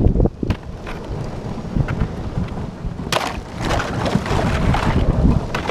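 Thin lake ice crunching and grinding against a plastic kayak hull as it is paddled through, a low rumble full of crackles. A louder burst of crackling begins about three seconds in.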